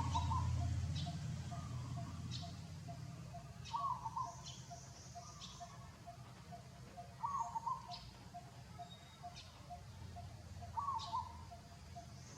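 Birds calling: a short phrase of a few notes repeated about every three and a half seconds, with thin high chirps in between and a faint steady ticking about three times a second. A low rumble fades out in the first couple of seconds.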